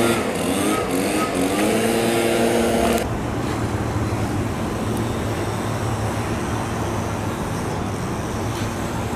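Brush cutter (grass trimmer) running at high speed. Its pitch dips and climbs back once, then it cuts off about three seconds in, leaving a steady low hum.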